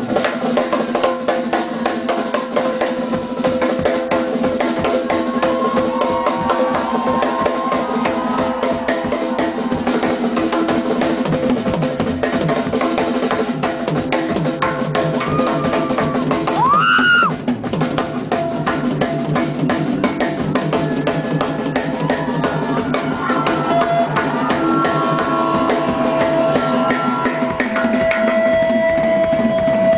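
Live rock band jamming, led by a drum kit played with dense, steady strokes of bass drum, snare and cymbals under held instrument notes, heard through a phone's microphone. A short pitched glide rises and falls about halfway through.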